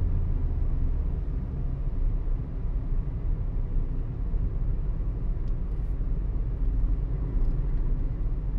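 A car driving at road speed: a steady low rumble of engine and tyres on the road.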